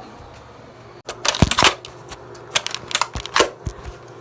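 Nerf blaster firing, with darts clattering: a quick cluster of sharp plastic clacks about a second in, then a few more single clacks around the middle.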